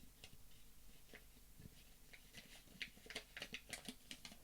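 Faint handling sounds of a phone box's contents being unpacked: soft clicks and rustles of cardboard and plastic packaging, sparse at first and busier from about halfway through.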